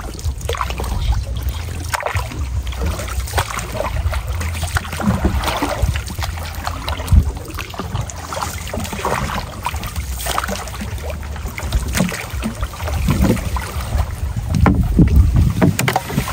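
Wind buffeting the microphone in a steady low rumble, with scattered knocks and splashes of water.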